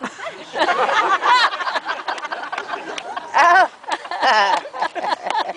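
Audience laughing, with several high voices exclaiming over one another.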